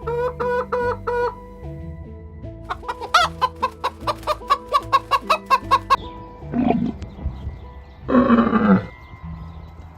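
Chicken clucking in a quick run of short pitched clucks, about four or five a second, followed by two short louder calls near the end, over light background music with a steady beat.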